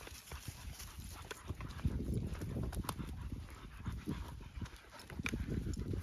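Dogs panting on a walk, with footsteps and paws scuffing along a dirt trail.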